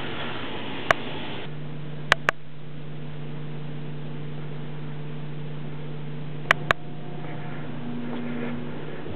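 Steady low hum that begins about one and a half seconds in, broken by sharp clicks from a basic digital camera: one near the start, then two quick pairs, about two seconds in and later on.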